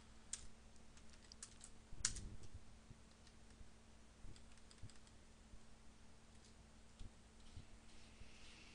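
Sparse computer keyboard keystrokes, a few separate taps spread out with the loudest about two seconds in, over a faint steady hum.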